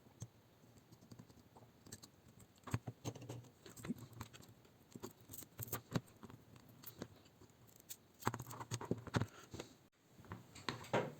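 Irregular clicks, light knocks and short scrapes of a laptop battery pack being handled and pulled apart by hand, its plastic casing and 18650 cells knocking together.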